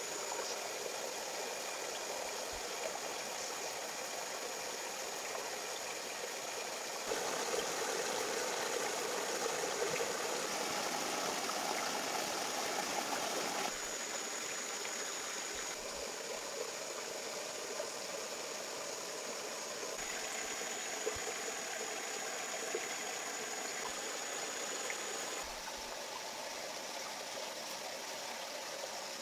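Steady noise of running water, its level and tone shifting abruptly several times.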